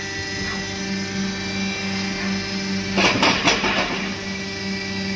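Steady electric machinery hum in a railway wheel workshop, with a short burst of metallic clattering about three seconds in.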